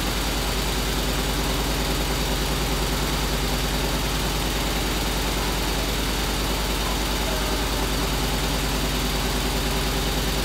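YuTeng YGB96-3-6 computerized multi-needle lock stitch quilting machine running at speed, its needle bars stitching in a rapid, even mechanical rhythm over a steady low hum.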